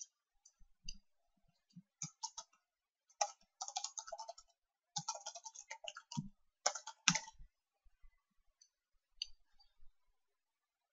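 Computer keyboard typing, faint, in several short bursts through the middle, then a few isolated clicks.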